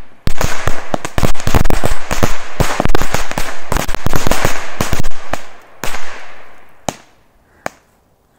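A string of smoky Korsar 1 firecrackers going off: a rapid, irregular volley of sharp bangs for about five seconds, then three last scattered bangs.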